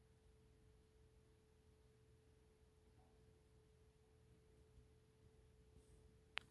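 Near silence with a faint steady hum, broken by a single sharp click of a computer mouse near the end.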